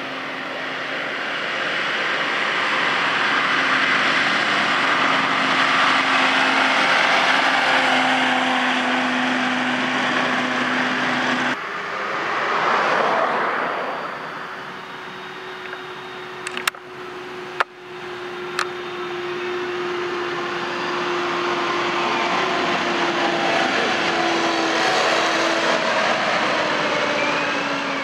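Farm tractors driving past on a road, diesel engine running with tyre noise and swelling as each one comes close, in a few separate shots cut together. Two sharp clicks come just past the middle.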